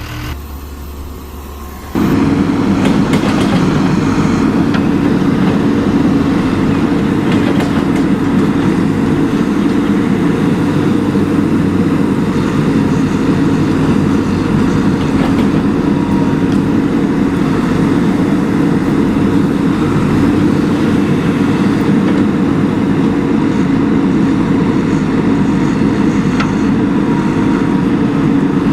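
Steady, loud engine-like rumble that starts abruptly about two seconds in and holds level.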